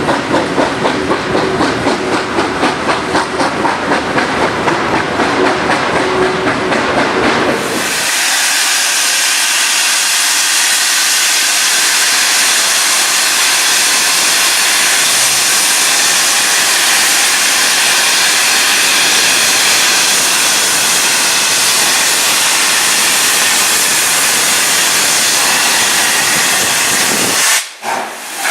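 Steam locomotive 3642 working, with a quick, even beat of exhaust chuffs. About eight seconds in this changes abruptly to a loud, steady hiss of escaping steam, which drops away just before the end.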